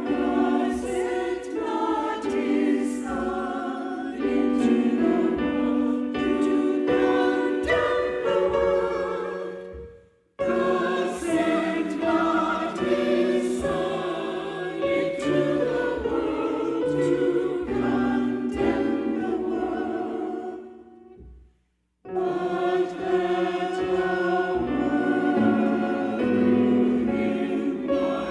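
Choir singing a sacred piece in several voice parts. The sound breaks off to silence twice, about ten and twenty-one seconds in, and starts again abruptly each time.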